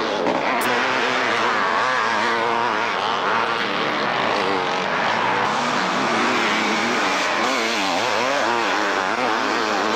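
Several two-stroke motocross bikes racing, their engines overlapping and revving up and down as the riders work the throttle.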